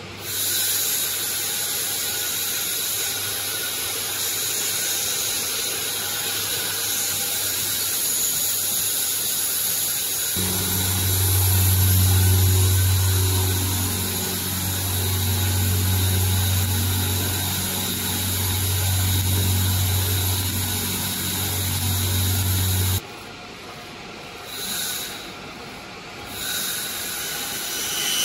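20 W JPT fiber laser marking machine running while it engraves a photo into a steel dog tag: a steady high-pitched whine and hiss, with a loud low hum joining about ten seconds in. The sound drops away abruptly about three-quarters of the way through, leaving a quieter hum with a couple of short swells and a new high tone near the end.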